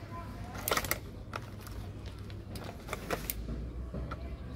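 Irregular light clicks and taps from handling a multimeter and its test leads, over a low steady hum.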